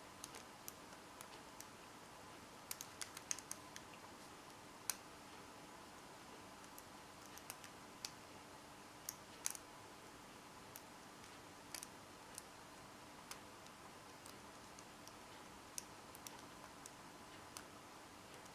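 Faint, irregular clicks of a combination padlock's number wheels being turned by hand, one detent at a time, while tension is held on the shackle to feel for a binding wheel.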